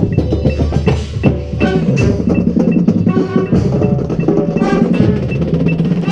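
Marching band playing its show music: sustained low chords over drums and percussion, with a steady high tick about three times a second.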